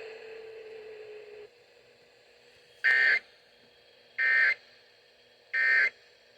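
Three short Emergency Alert System (SAME) end-of-message data bursts from a NOAA Weather Radio broadcast, each a brief electronic burst about a third of a second long and a bit over a second apart. They signal the end of the warning message. Before them a faint steady hum cuts off about a second and a half in.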